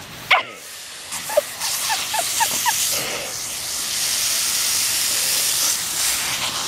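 A black Labrador yelps sharply about a third of a second in, then gives a quick string of short high yips as she snaps at a garden hose's spray nozzle, and the nozzle's fine spray hisses steadily from about a second and a half in.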